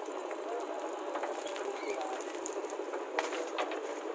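JCB 3DX backhoe loader at work, its diesel engine and hydraulics running as the rear bucket scoops and spills loose soil and then swings: a steady crackling, clattering mechanical noise with scattered clicks and one sharper knock about three seconds in.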